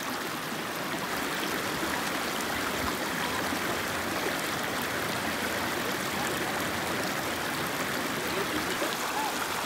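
Shallow, rocky creek flowing over stones: a steady rush of running water.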